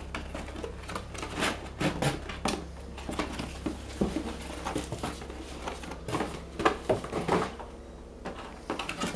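Cardboard packaging being handled: a box insert lifted out and flaps moved, giving irregular scrapes, taps and knocks, over a steady low hum.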